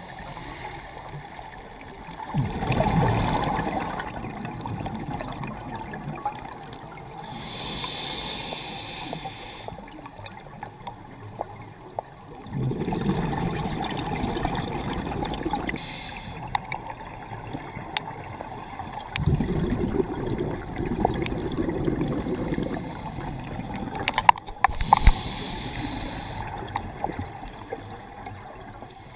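Scuba regulator breathing heard underwater: a short hiss on each inhalation and a longer rumbling gurgle of exhaled bubbles. This repeats through several slow breaths several seconds apart.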